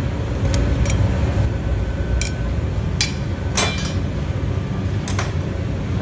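Steady low rumble of glassblowing hot-shop equipment, with about six sharp metallic clinks of tools and blowpipes knocking, the loudest about halfway through.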